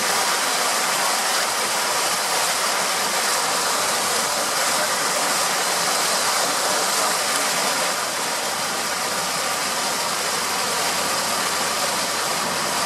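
Motorboat running steadily along a river, its engine noise mixed with a constant hiss of rushing water and air.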